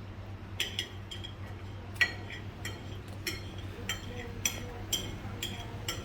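Utensils clinking against dishes: a dozen or so sharp clinks with a short ring, irregular at about two a second.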